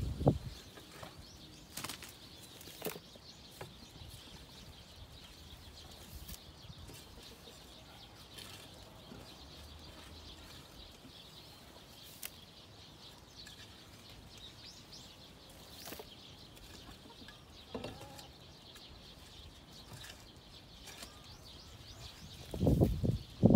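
A hand scoop scraping up and tossing loose chicken-coop litter of sawdust-like bedding mixed with droppings. There is a loud scrape and thud at the start and another run of scrapes near the end, with a few light scrapes and knocks in between.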